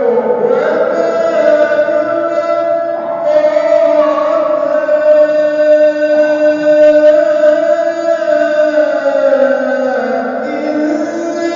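A Quran reciter's voice holding long, ornamented melodic notes in tajweed-style recitation. The pitch steps and glides between sustained tones a few times, with no break for breath.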